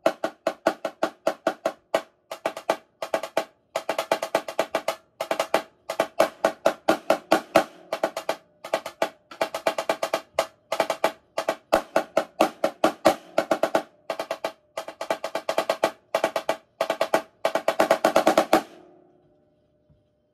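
Marching snare drum played solo with sticks: fast rhythmic patterns of accented strokes and rolls, stopping about eighteen seconds in and leaving a short fading ring from the drum.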